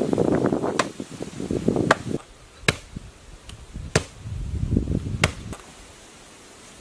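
A hand tool chopping: five sharp strikes spaced about a second apart, with rough scraping and rustling between them. The work stops about a second before the end.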